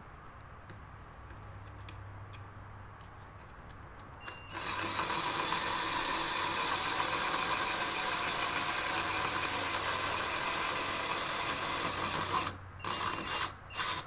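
Cordless drill with a masonry bit drilling into a brick wall. It starts about four and a half seconds in, runs steadily for about eight seconds, stops, then gives a couple of short bursts near the end.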